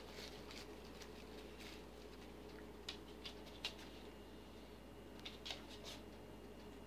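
Quiet room with a faint steady hum, broken by a few soft crinkles and ticks of plastic shopping bags being disturbed, in two small clusters about three and five and a half seconds in.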